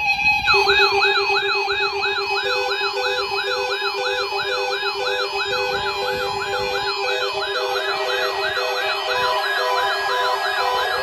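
Several electronic siren and alarm tones sounding together, starting abruptly: a fast rising yelp repeating about three times a second over steady tones, joined after a couple of seconds by a regular beeping tone.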